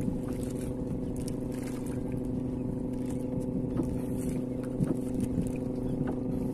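Small boat engine running steadily at an even pitch, with a few faint clicks and knocks over it.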